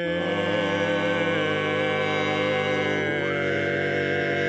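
Barbershop quartet of four men singing a cappella in close harmony, holding a sustained chord on a sung word, with the harmony shifting to a new chord about three seconds in.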